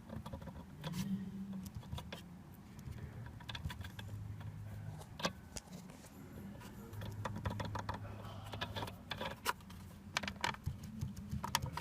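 Irregular light clicks and rattles of plastic and metal parts being handled around a steering column, over a low hum that comes and goes.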